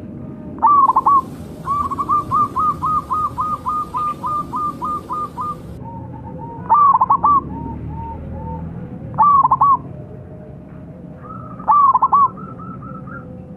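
Zebra dove (perkutut) cooing: loud, rolling coo phrases about every two and a half seconds, with runs of quick, softer coo notes at about three a second between them.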